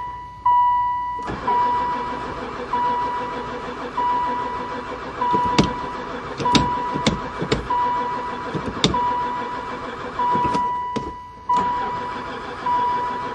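Van's starter cranking the engine, starting about a second in, pausing briefly near the end and then cranking again; the engine never fires even with gas poured into the intake, which the owner puts down to no spark. A warning chime rings about once every second and a bit throughout, with a few sharp clicks.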